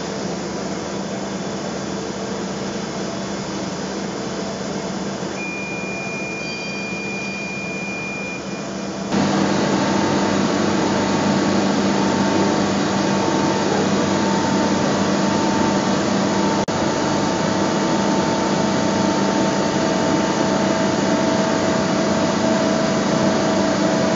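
A CNC travelling-column bed milling machine running under power: a steady hum and whir with a few steady whining tones, and a brief high whine around a quarter of the way in. About a third of the way in the sound jumps suddenly louder and fuller, with new whining tones.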